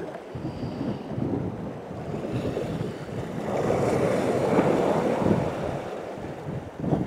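Sea waves washing and breaking over the shore rocks, with gusting wind buffeting the microphone; the wash swells to its loudest about four to five seconds in.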